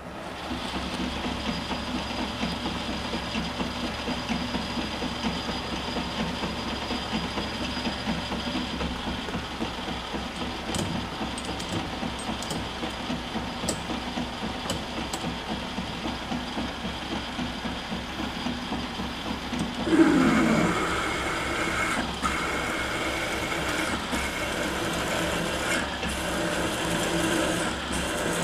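Metal lathe motor starting up and running steadily with the chuck spinning. About twenty seconds in, a large twist drill in the tailstock begins boring into the end of the spinning metal bar, and the sound becomes louder with a brief falling tone as the drill bites.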